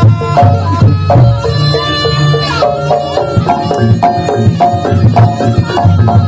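Live Javanese jaranan gamelan music: a held melody line changing notes over kendang drum strokes and repeating percussion beats.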